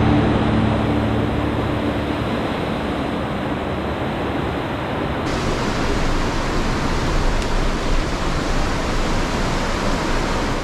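Steady rushing of a fast mountain river running white over rocks.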